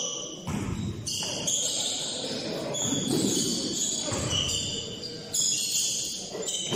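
Basketball shoes squeaking on a hardwood gym floor as players cut and stop: many short, high squeaks starting and stopping and overlapping, over the general noise of play in the hall.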